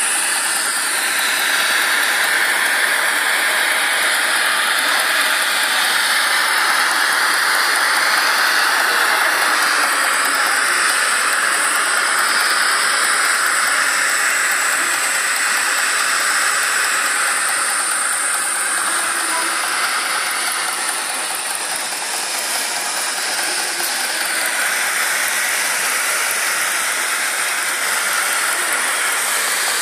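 Gas torch burning with a steady hiss.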